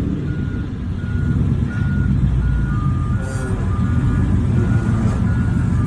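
Vehicle engine idling with a steady low rumble, while a string of short electronic beeps repeats about one and a half times a second.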